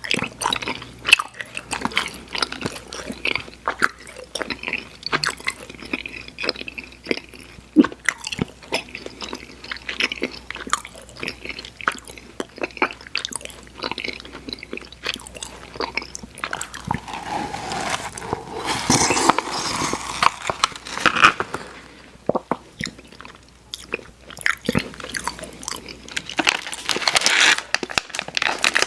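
Close-miked chewing of chewy sour candy: wet, sticky mouth clicks and smacks in an irregular run, growing denser and louder about two-thirds through and again near the end.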